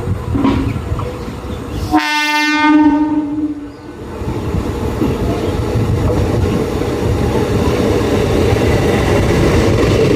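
Indian Railways train horn sounding one blast of nearly two seconds about two seconds in, over the noise of a running train. After it the train's rumble and wheel clatter on the rails build steadily louder.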